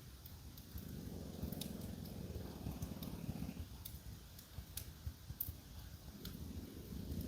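French bulldog snoring: one long snore about a second in, and the next one starting near the end. A wood fire crackles with scattered small pops throughout.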